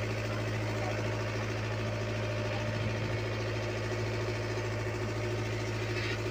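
A wooden boat's engine running steadily, a constant low hum that holds the same pitch and level throughout.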